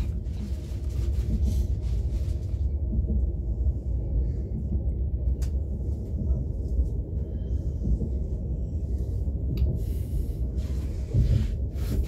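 Steady low rumble of an ES2G electric multiple-unit train running, heard from on board, with a couple of short sharp clicks.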